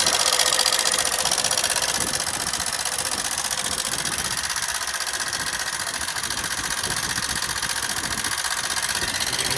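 Hero Super Splendor BS6 single-cylinder engine running steadily with a fast, even rattling from the valve train. It is run without engine oil, and the rattle is the sign of worn rocker arms.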